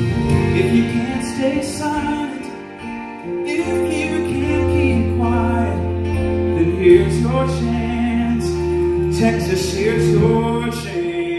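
Live gospel song: a woman singing into a handheld microphone, backed by two strummed acoustic guitars.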